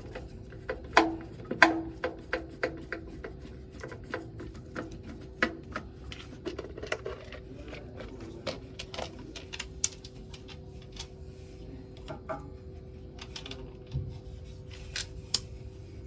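Irregular clicks, taps and scraping from hands working with tools and fittings, over a faint steady hum. The sharpest knocks come between about one and two seconds in.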